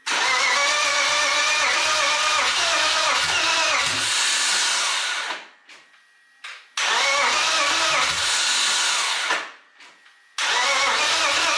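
Starter motor cranking the newly swapped-in engine of a BMW E46 in three bursts: about five seconds, a pause, nearly three seconds, another pause, then a third. Each burst is a whine over a pulsing low chug.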